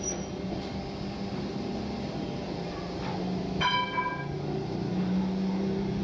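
Metal lathe running and cutting a rectangular block held in a four-jaw chuck: a steady machine hum, with a short ringing metallic clang about three and a half seconds in.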